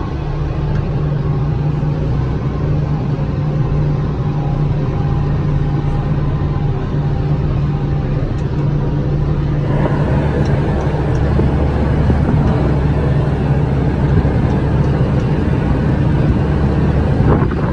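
Diesel engine of a loader-type earthmover running steadily, heard from inside its cab as it drives along, with a deep, even drone. The engine gets louder and fuller about ten seconds in.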